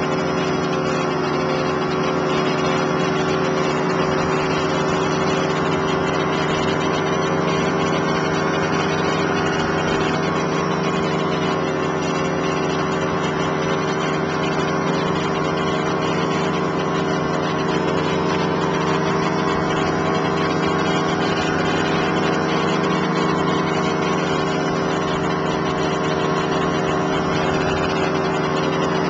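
A machine running at a constant speed: a steady drone of several fixed tones that does not change.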